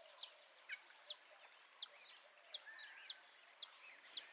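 A bird repeating a short, sharp, high chip note about every two-thirds of a second, seven times, over faint softer bird calls.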